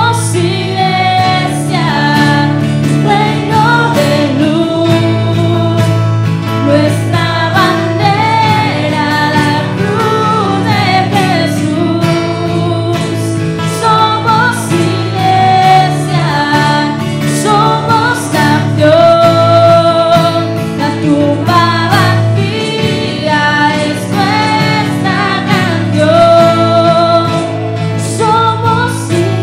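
Live worship band playing a Spanish-language praise song: women's voices singing the melody over acoustic guitar, keyboard and cajón.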